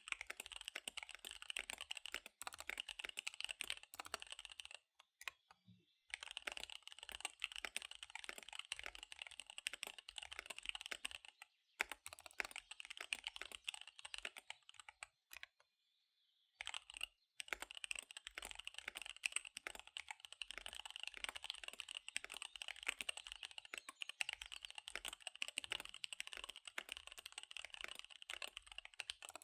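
Fast typing on a KBD75 V3 mechanical keyboard with SP-Star Dark Magic Girl tactile switches and DSA keycaps: a rapid, dense stream of key clicks. It breaks off twice, briefly about five seconds in and for several seconds near the middle.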